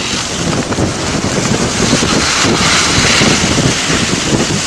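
A forest fire burning close by: a loud, continuous rushing roar of burning vegetation with dense crackling throughout.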